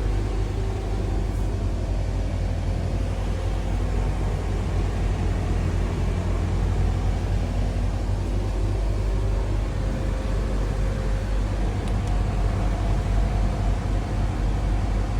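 A steady, low mechanical drone with a faint hum, unchanging throughout.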